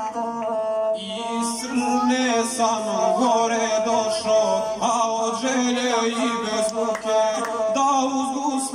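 A gusle, the single-string bowed folk fiddle, playing a steady wavering line, with a man's singing joining over it about a second in.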